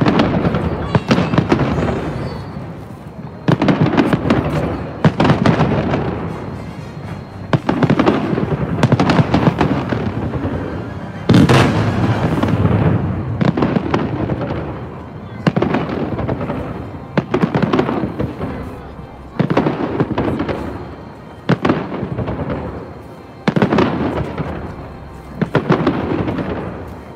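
Fireworks salute fired in volleys: a loud boom about every two seconds, each followed by a trail of crackles fading away as the shells burst overhead.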